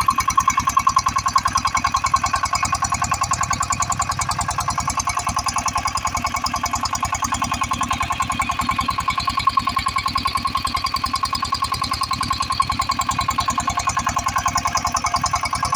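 Single-cylinder horizontal diesel engine running steadily with a rapid, even chugging beat, driving an irrigation water pump by belt. A steady high whine runs over it.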